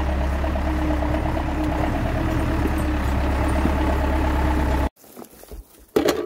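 Farm tractor engine with a front-end loader running steadily as the tractor drives up; it cuts off abruptly about five seconds in, and a short knock follows near the end.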